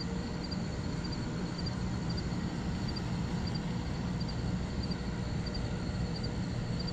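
Steady low outdoor rumble, with faint high double chirps repeating about every two-thirds of a second.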